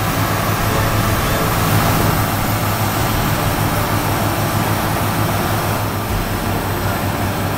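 JCB Fastrac tractor running close by: a steady engine noise with a strong low hum and a broad hiss over it.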